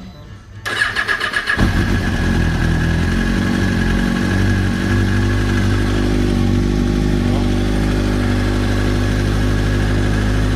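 A 2005 Kawasaki Ninja 636's starter motor cranks for about a second, then the inline-four engine catches and idles steadily. This is a test start after the ignition switch was replaced. The sound cuts off suddenly near the end.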